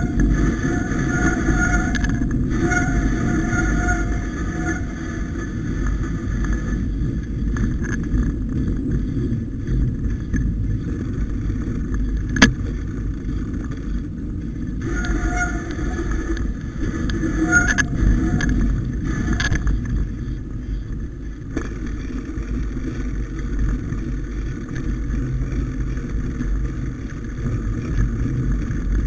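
Mountain bike riding over a rough, snow-patched dirt trail: a steady low rumble of tyres and rattling bike, with a single sharp click about twelve seconds in.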